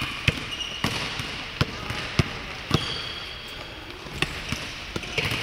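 Basketball bouncing on the court floor during dribbling: about six sharp bounces at uneven intervals, with a gap of about a second and a half after the middle.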